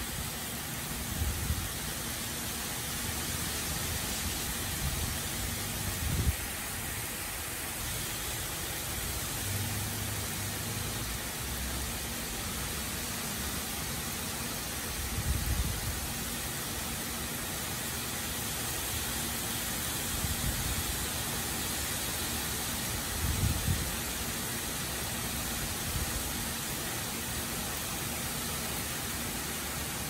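Heavy rain falling steadily, a dense even hiss, broken by a few brief low rumbles.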